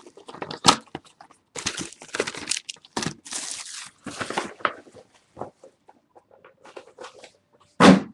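Plastic wrapping on a trading-card box being torn and crinkled in irregular bursts, with a few light knocks from handling the box. The loudest rustle comes near the end.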